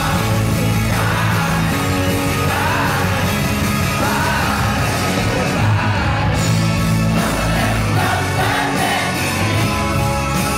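Live rock band playing a song at full volume, a lead vocalist singing over bass, guitars and drums.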